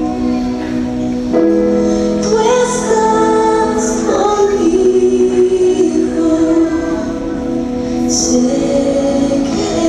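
Christian worship song: female voices singing a melody in long held notes over the music.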